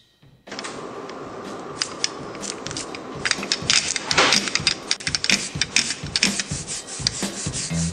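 Rubber brayer rolling printing ink out on an inking slab, starting about half a second in: a steady sticky crackle with many fine clicks, the sound wanted when the ink is rolled out properly.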